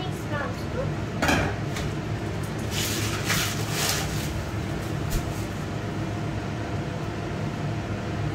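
Wooden spoon stirring sauce in a frying pan on the stove, with a knock of a utensil against the pans about a second in and a longer stretch of scraping a few seconds in, over a steady low hum.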